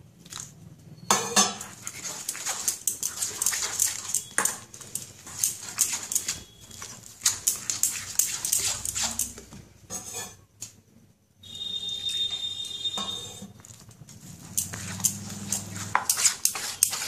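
A metal spoon scraping and clinking against a stainless steel bowl in quick, irregular strokes, stirring gram flour (besan) and water into a thick pakora batter. The stirring stops for about a second a little past the middle, then carries on.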